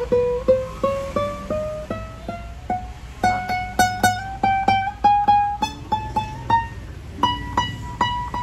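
Nylon-string classical guitar, a Spanish-made 8C with a solid spruce top, picked lightly as a single-note melody. The plucked notes climb in pitch at about three a second, with a short break near the end.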